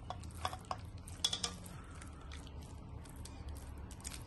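Hands working a thick masala paste into raw beef chops in a bowl: soft wet squelches with scattered small clicks. A low steady hum sits underneath.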